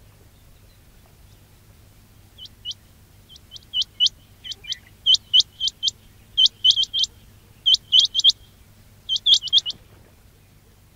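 Quail calling: short, sharp, upward-flicking whistled notes in quick groups of two to four, starting a couple of seconds in and repeating about once a second, over a faint low hum.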